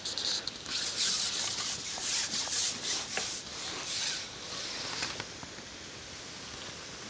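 Carbon fishing pole sliding back through the angler's hands and over its rest as it is shipped in, in a run of rubbing strokes that stop about five seconds in; a faint steady hiss of outdoor ambience follows.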